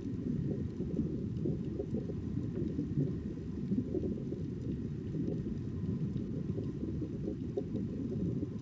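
Steady low rumble of underwater ambient noise picked up by a diving camera, with nothing higher in pitch above it.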